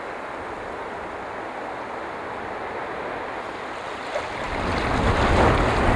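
Wind rushing, growing louder about four seconds in as a gust buffets the microphone with a low rumble.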